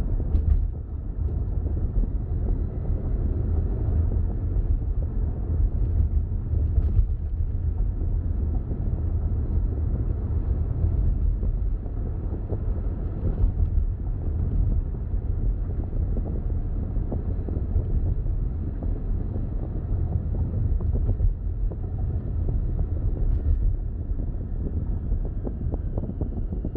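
Steady low rumble of road and wind noise from a car driving, with a few faint clicks.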